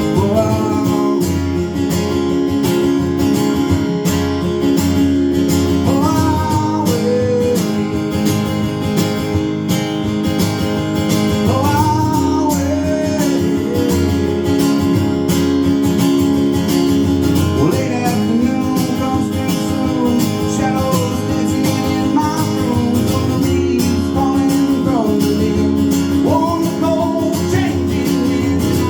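Acoustic guitar strummed steadily through a slow country-style song, with a bending melody line rising over the chords several times.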